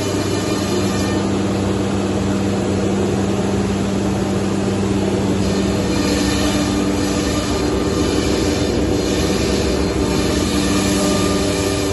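Cosmec Fox 16 CNC nesting router running, a loud, steady mechanical noise with several steady hum tones. A low hum sets in just after the start and stops near the end, and a higher one joins about halfway through.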